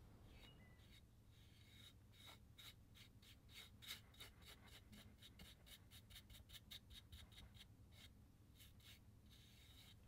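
Faint, quick scratchy strokes of a paintbrush's bristles brushing white paint along the edge of a wooden board, about four strokes a second, starting about two seconds in and stopping near the end.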